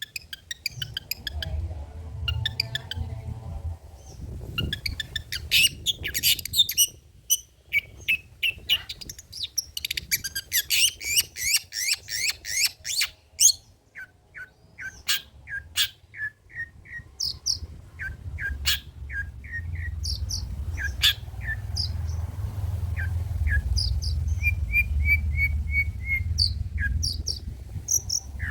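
Long-tailed shrike (cendet) singing a varied song of rapid chattering phrases and short repeated chips, a repertoire built from other birds' calls. A low rumble runs beneath and grows stronger in the second half.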